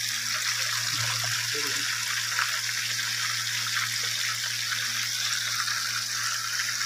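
Pieces of coated fish deep-frying in a pan of hot oil: a steady, even sizzling hiss, with a low steady hum underneath.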